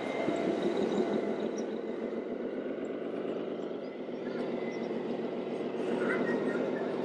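Radio-controlled model trucks running with a steady mechanical sound, over the murmur of a crowd of voices.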